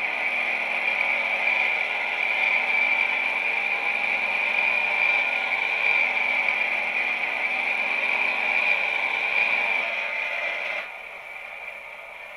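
Homemade acoustic smoker running, a steady, high-pitched noise as it pushes out smoke; near the end it drops to a much quieter level.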